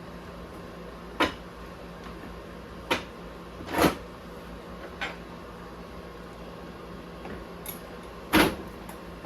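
Scattered clicks and clunks of tools and parts being handled while an RC truck's axle and carrier housing are worked on: five separate knocks, the loudest near the end, over a steady low hum.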